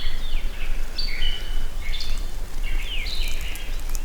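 Several songbirds singing in woodland, short whistled phrases and chirps overlapping one another, over a steady low rumble.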